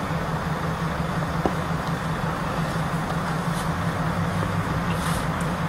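A steady low engine hum, like a vehicle idling, with a few faint light clicks about three and a half and five seconds in.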